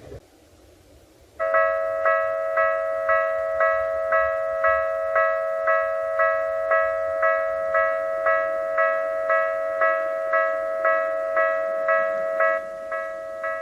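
Japanese railway level-crossing alarm starting up about a second and a half in: an electronic bell tone ringing about twice a second. It drops in level near the end and keeps ringing.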